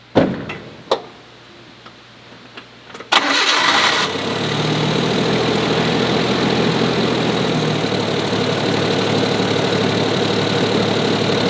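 Two sharp knocks, then the Suzuki Jimny JA11's three-cylinder turbo engine is cranked by the starter for about a second, catches, and settles into a steady idle. It is being run for a few minutes to circulate fresh oil after an oil and filter change.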